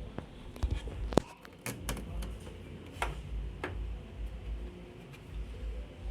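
Hands working on a washing machine's parts: scattered clicks and knocks at irregular moments, the sharpest and loudest about a second in, over a low handling rumble.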